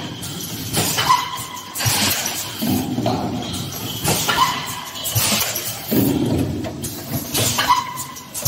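PET stretch blow moulding machine running its automatic cycle: sharp pneumatic blasts and air-exhaust hisses repeat about every three and a half seconds, with a lower mechanical running sound in between.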